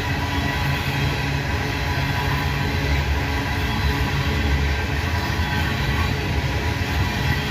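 Freight cars of a long coal train rolling past, a steady rumble of wheels on rail with faint steady ringing tones over it.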